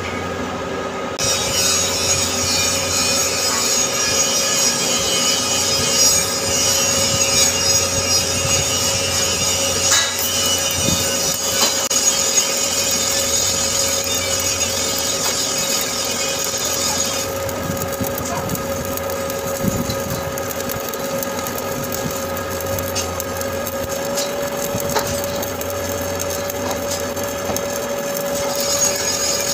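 Shielded metal arc (stick) welding arc crackling steadily as the electrode lays the capping pass on a 10-inch carbon steel pipe joint; the arc strikes about a second in. A steady hum runs underneath.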